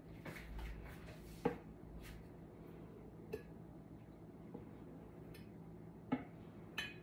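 Sparse light clicks and knocks of painting tools being handled: a metal palette knife and paint cups, and the poured panel being turned by hand on its turntable. The sharpest knocks come about a second and a half in and twice near the end, with a low rumble in the first two seconds.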